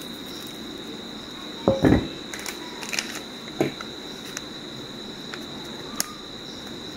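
A steady high cricket trill runs throughout. A dull knock comes about two seconds in and a few light clicks follow, the sounds of handling a bowl and container while biscuit crumbs are added.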